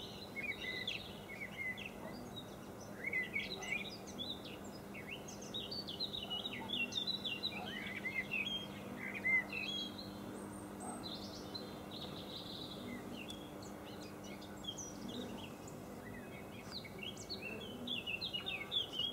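Songbirds singing and chirping in quick, short, overlapping notes, busiest in the first half and again near the end. A faint steady low hum runs underneath.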